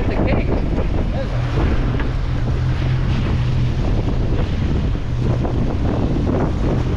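Heavy wind buffeting the microphone on a fishing boat under way, over the steady low drone of the boat's engine and the wash of rough water.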